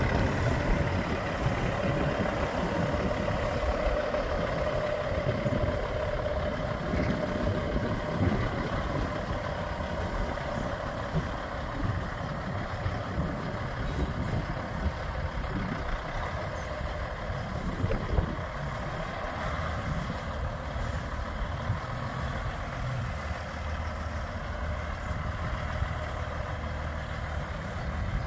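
Peterbilt 388 semi tractor's diesel engine running as the truck drives slowly away, growing fainter over the first ten seconds or so and then holding steady.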